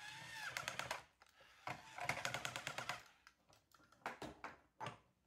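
Toy battery drill with a nut-driver socket whirring on a plastic bolt, with rapid ratcheting clicks in two runs in the first three seconds, followed by a few separate plastic clicks and knocks as the toy plane parts are handled.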